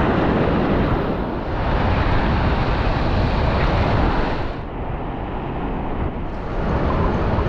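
Heavy surf washing on the beach, with wind buffeting the microphone; a little louder for the first four seconds or so, then easing off.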